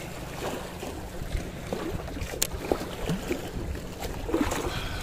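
Wind rumbling on the microphone over small waves washing against a concrete sea wall, with a single sharp click about halfway through.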